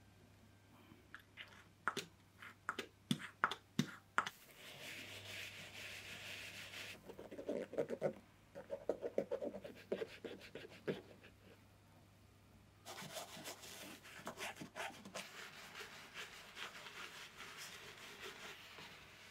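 Leather Gucci trainers being handled and cleaned up close: a string of sharp clicks and creaks as the leather is flexed, then a steady soft hiss, then rhythmic rubbing of a cotton swab over the leather tongue. From about two-thirds of the way in, a bristle brush scrubs the leather upper in quick, rhythmic strokes.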